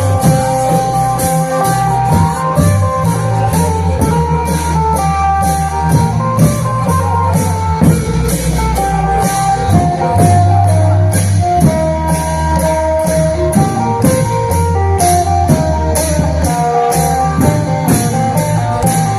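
Isan klong yao long-drum band music at a slow tempo: long drums and steadily struck cymbals keep the beat under a plucked-string melody and a deep bass line.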